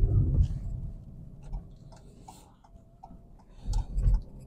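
Cabin noise of a Ford Focus driven over a rough, stony track: low thumps and rumble from the road at the start and again near the end, with an even light ticking, about three clicks a second, in between.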